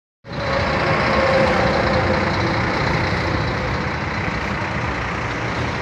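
A large vehicle's engine running steadily, loud and unchanging.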